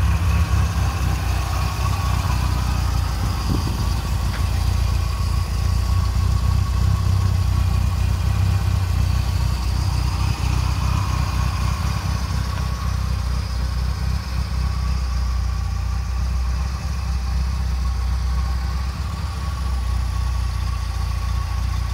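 1971 MGB GT's 1.8-litre B-series four-cylinder engine, fed by twin SU carburettors, idling steadily.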